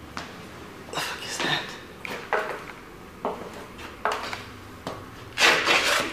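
A string of short scuffs, scrapes and knocks, roughly one a second, from someone moving about in a small room with debris underfoot. The loudest and longest scrape comes near the end.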